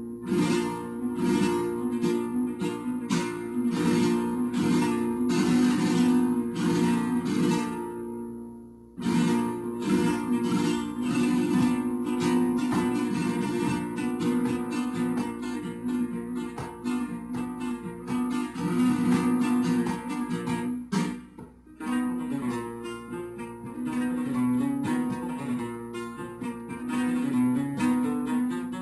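Music with rhythmic strummed guitar, dropping out briefly twice.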